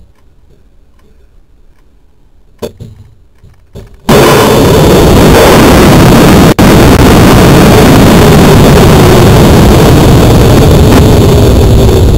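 Water rocket launching, heard from its own onboard camera: quiet with a couple of small clicks, then about four seconds in a sudden loud rush as it lifts off. The rush carries on as steady wind noise over the camera's microphone during the flight.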